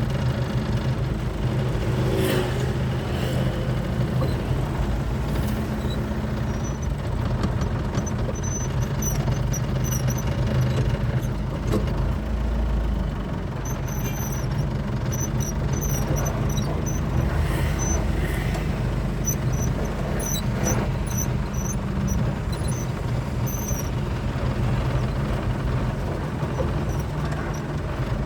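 Truck's diesel engine running steadily on the road, a continuous low rumble with short high squeaks now and then.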